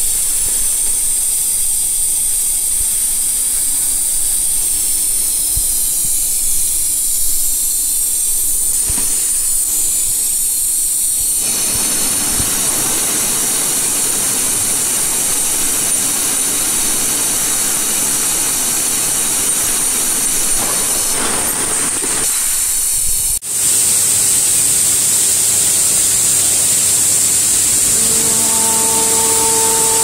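Steady high-pitched hiss of running factory machinery on a tube-processing line. A broader, rougher machine noise joins about a third of the way in. The sound drops out for an instant about two-thirds through, and the hiss then carries on, with a few steady hum tones coming in near the end.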